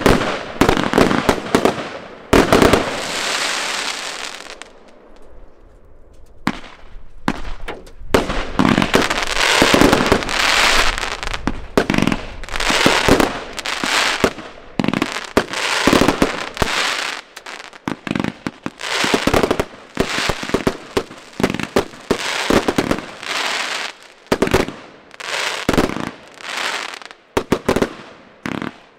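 Aerial fireworks going off in rapid succession: dense, sharp bangs of bursting shells with hissing and crackling between them. There is a short lull about five seconds in, then steady volleys again.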